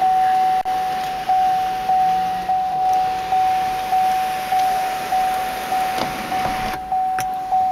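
The 2010 Chevrolet Camaro SS's warning chime ringing over and over, one steady tone struck about every 0.6 seconds, each stroke fading before the next. Under it the power sunroof motor runs faintly and stops near the end.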